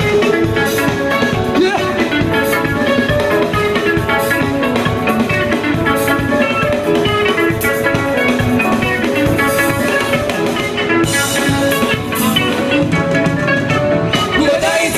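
Live gospel band music with a steady drum beat, filling the hall.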